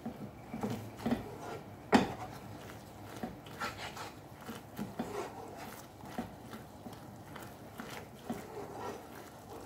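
Wooden spoon stirring and scraping a thick cream sauce around a non-stick frying pan, in soft irregular strokes with one sharper knock about two seconds in.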